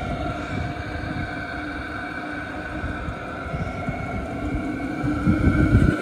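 Calory diesel parking heater running warmed up: a steady whine from its blower fan over a low burner rumble from the open exhaust port. The rumble grows louder near the end.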